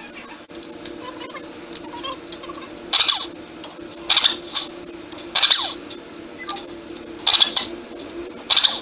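Air-powered wrench running in five short bursts about a second or two apart, turning the nut on a truck's front wheel spindle, over a steady low hum.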